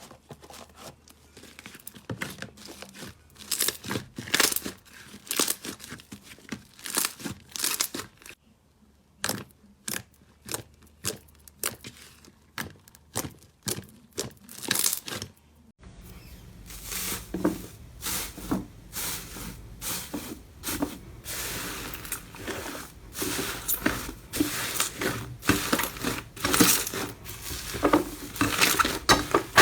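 Slime being squeezed and worked by hand, making irregular sticky crackles and pops. About halfway through, the crackling becomes denser and louder over a steady background hiss.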